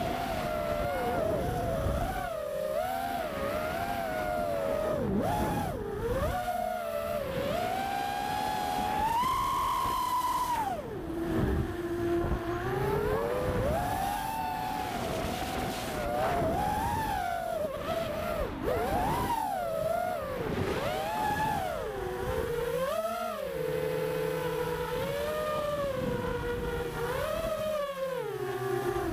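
Racing quadcopter's Lumenier POPO 2206 2450 kV brushless motors and propellers whining in flight. The pitch rises and falls constantly with the throttle, dropping low for a moment about eleven seconds in. Heard from the drone's onboard camera.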